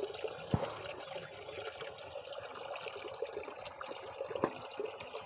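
Cows drinking from a concrete water trough: water sloshing and dripping around their muzzles, with many small scattered clicks.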